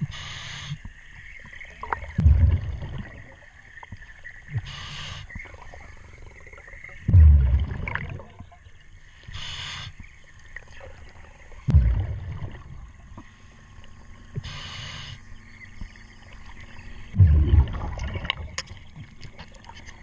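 A diver breathing through a regulator underwater: a short hiss on each inhalation, then a low rumble of exhaled bubbles, four breaths about five seconds apart, with the bubble rumbles loudest.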